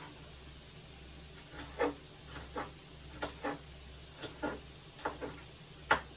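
Kitchen clatter: about ten irregular knocks and clinks of utensils and dishes being handled, the sharpest one near the end, over a steady low hum.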